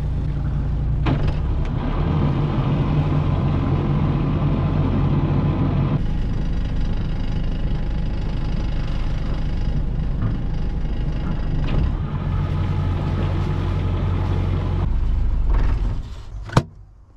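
Sailboat's inboard diesel engine running steadily at low revs while motoring slowly, then shut off with the panel's stop button about sixteen seconds in; the hum dies away quickly and a single sharp click follows.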